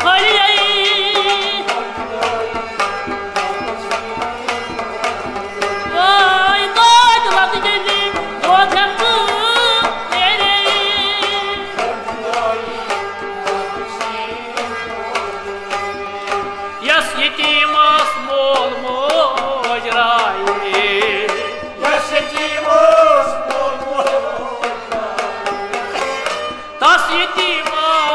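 Kashmiri folk ensemble playing: a man singing over harmonium, with plucked rababs, a bowed sarangi, and a clay matka pot drum struck in a dense, steady rhythm.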